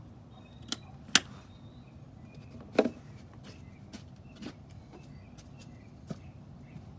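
A handful of sharp, isolated clicks and knocks over a low steady hum, the loudest about a second in and near three seconds in. A few faint high chirps come in the first second or two.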